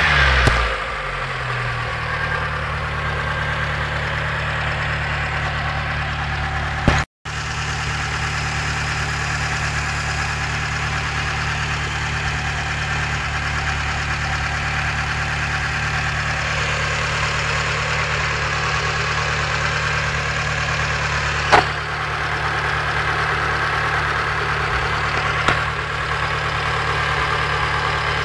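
Mitsubishi 4G13P four-cylinder engine settling from a rev back to a steady idle, with a knock that the owner suspects comes from incorrect valve clearance. A few sharp clicks stand out over the idle.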